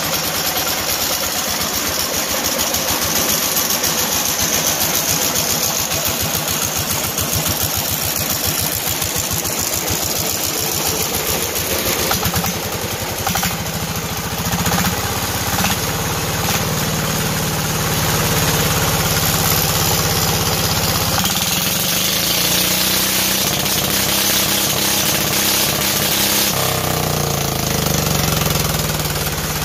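Small single-cylinder air-cooled diesel engine running with a fast, even knock, its speed stepping up and down several times as the throttle pedal is worked.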